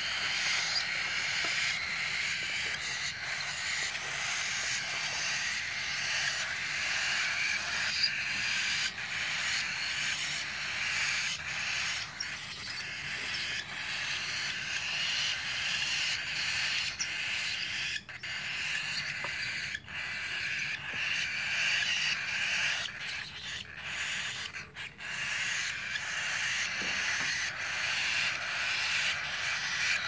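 Baby cockatiels and lovebird chicks giving a continuous raspy, hissing chorus of calls, dipping briefly a few times past the middle.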